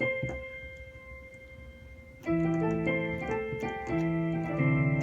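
Keyboard piano sound played through an octave pedal: a chord rings and fades, then a new series of chords begins a little over two seconds in.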